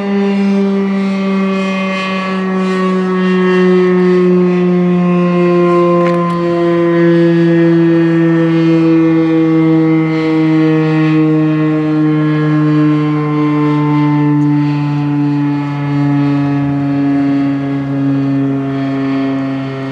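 Federal Signal RSH-10 dual-tone rotating outdoor warning siren winding down, its pitch falling slowly and steadily.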